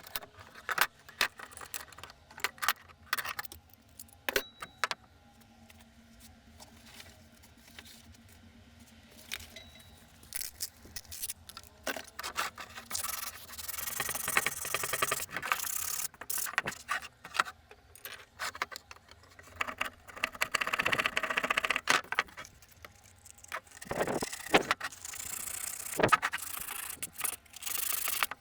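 Hand work on an old grater: a string of sharp clicks and knocks, then repeated spells of scraping and rubbing a few seconds long.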